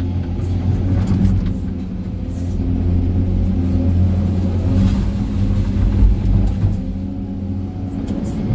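Hydraulic excavator's diesel engine and hydraulics running under load, heard from inside the operator's cab. The engine note swells and eases as the bucket digs into broken concrete rubble, with faint clatter of stones.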